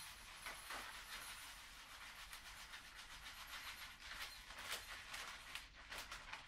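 Faint crinkling of a plastic bag of sushi rice being handled as rice is poured out into a measuring cup: a soft steady hiss with scattered small ticks, a few louder crinkles late on.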